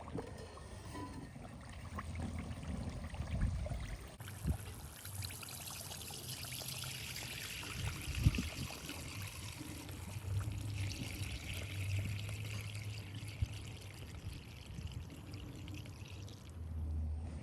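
Melted ghee pouring in a steady trickling stream. It starts suddenly about four seconds in and stops suddenly near the end.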